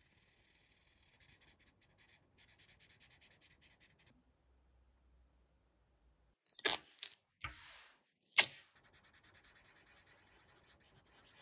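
Crayola Color Wonder marker scribbling on paper in faint, rapid strokes, stopping about four seconds in. A little past halfway come three sharp, louder noises, the last the loudest, and then the faint scribbling starts again.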